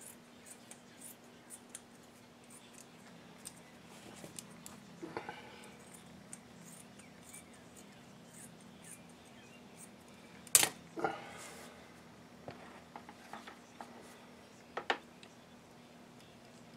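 Rustling and small clicks of cotton T-shirt fabric and cardboard being handled on a wooden workbench, with a sharp knock about ten and a half seconds in and another near fifteen seconds. A faint steady hum runs underneath.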